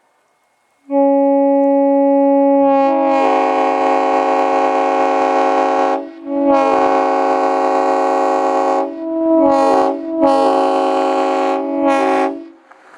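Nathan M5R24 five-chime locomotive air horn blowing a rich chord. It starts about a second in, with its bells joining one after another over the next two seconds, and holds a long blast. Four shorter blasts follow, the last two brief.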